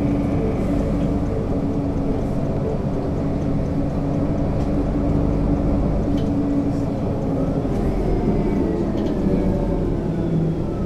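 Mercedes-Benz Citaro C2 city bus running, a steady engine drone with a low hum. About eight seconds in, a faint whine begins that falls slowly in pitch.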